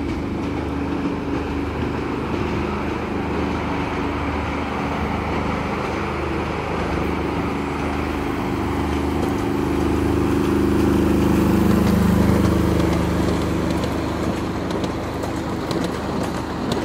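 Miniature railway train's small motor humming steadily as the train approaches, growing louder as it draws near and passes, then easing off, with a few light clicks of the wheels on the track near the end.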